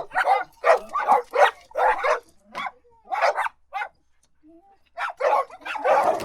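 Dog barking repeatedly in short, sharp barks, about two a second, with a pause of about a second midway before the barking resumes.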